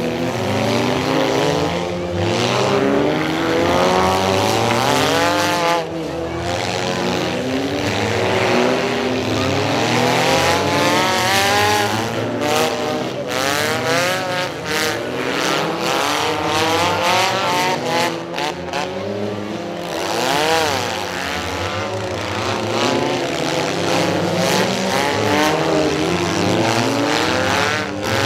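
Several demolition-derby cars' engines revving hard together, their pitch rising and falling as they accelerate and brake through the figure-8. Sharp bangs sound several times about halfway through.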